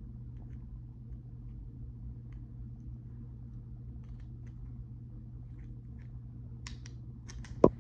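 Steady low rumble of a freight train going by, heard from indoors behind a closed window shade. Near the end come a few sharp handling clicks and one loud knock as the phone is moved.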